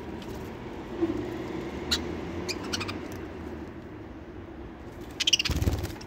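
Budgerigars giving a few short chirps, then, near the end, a burst of rapid wing flapping with chirps as a budgie flies in and lands at the seed tray, over a steady low hum.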